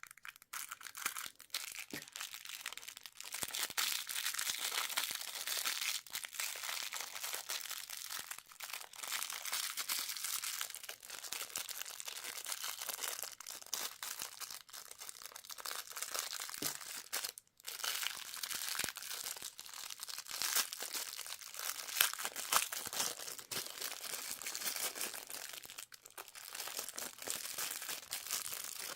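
Candy and toy wrappers crinkling and tearing as they are unwrapped: a continuous crackle of many small clicks, with a brief break a little past halfway.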